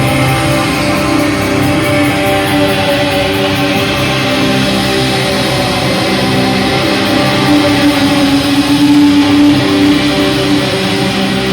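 Rock band playing live, with loud sustained electric guitar chords.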